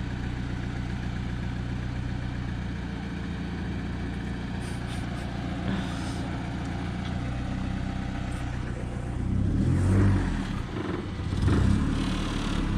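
A car engine running steadily at idle, then louder and uneven from about nine seconds in as it is given more throttle.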